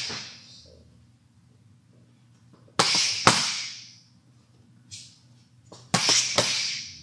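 Boxing gloves smacking into focus mitts in two combinations: each a jab and then a spinning back-fist, two sharp smacks about half a second apart, the first pair about three seconds in and the second about six seconds in.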